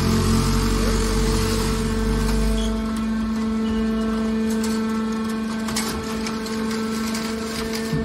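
Hydraulic scrap-metal baler running, its hydraulic pump and motor giving a steady hum while the ram pushes a compressed bale of aluminium scrap out of the discharge door. A deep low rumble drops away about three seconds in, and scattered metallic clicks follow.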